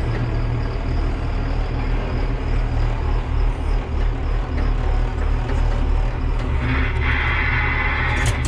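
Farm vehicle engine running steadily with a low, even drone. A louder rushing noise joins in for about a second and a half near the end.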